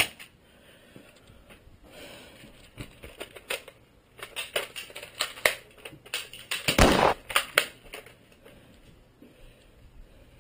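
Scattered clicks and rattles from plastic Nerf blasters being handled, with a run of quick clicks in the middle and a louder short burst of noise about seven seconds in.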